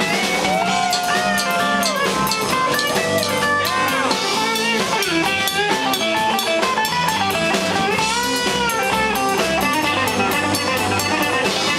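Hollow-body archtop electric guitar playing a lead solo with bent notes over bass and drums in a live band.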